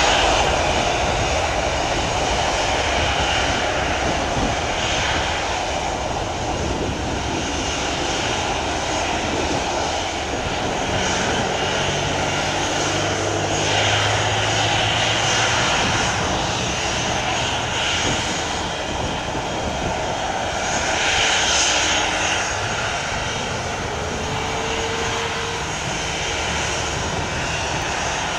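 Twin-engine jet airliner's engines at takeoff thrust, heard from behind as it rolls down the runway and lifts off: steady jet engine noise with no let-up.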